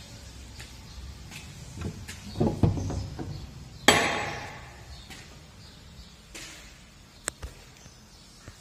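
A wooden front door being handled and opened: a few dull knocks, then a sharp clack about four seconds in with a short ringing tail, and a single light click near the end.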